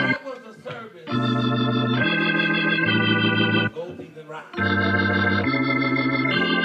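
Music: held organ chords that change about once a second, in two long phrases separated by short, quieter gaps, with no singing yet.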